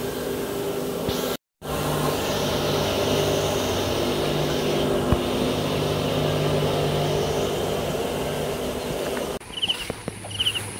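Small household grain mill for maize and paddy running with a steady hum, cut by a brief dropout about a second and a half in. Near the end the hum gives way abruptly to quieter outdoor sound with short repeated bird chirps.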